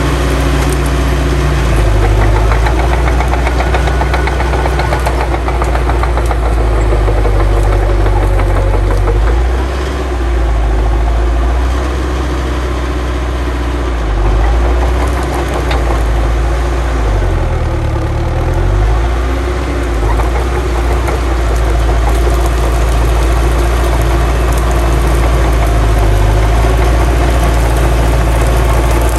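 Heavy diesel earthmoving machine engine running under changing load, its pitch dropping and rising again a few times.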